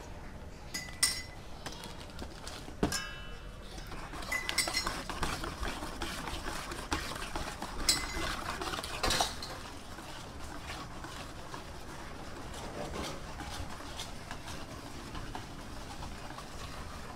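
Metal kitchen utensils clattering against pots, pans and dishes: scattered sharp clinks and knocks, several ringing briefly, with softer clatter between.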